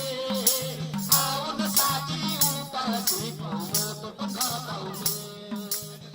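Background music with a steady beat and a repeating bass line under a melody, getting quieter near the end.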